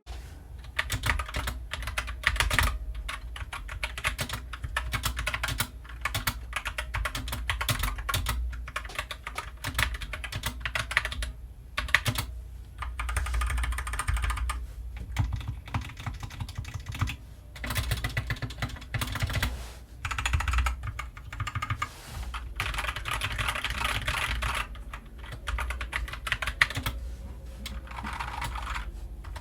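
Typing on a Kemove DK61 mechanical keyboard, freshly fitted with Gateron Brown switches: fast, dense keystroke clacking in runs with a few short pauses.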